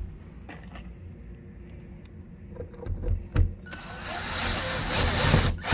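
Small clicks and knocks of lock hardware being handled. Then a small electric motor, most like a cordless driver's, whirs steadily for about two seconds and ends in a loud thump.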